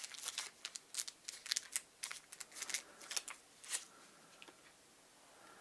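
Quick, light clicks and rustles of small plastic parts being handled, such as a drone's propeller blades and a small screwdriver. They come thick for about four seconds, then die away to faint room tone.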